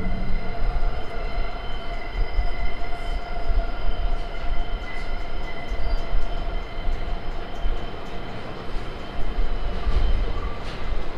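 Subway train approaching along an elevated steel structure: a low rumble with a steady high whine in several tones above it.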